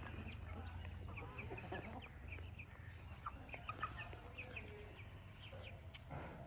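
A flock of hens clucking softly while feeding, a scatter of many short, high calls over a steady low hum.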